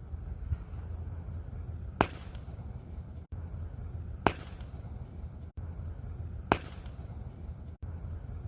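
Crackling fire giving sharp pops about every two seconds, each followed by a fainter pop just after, over a steady low rumble.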